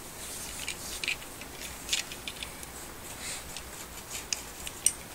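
Light handling noise with scattered small, sharp plastic clicks, the strongest about two seconds in and near the end, from a power-supply cable and its 8-pin connector being handled and tried apart.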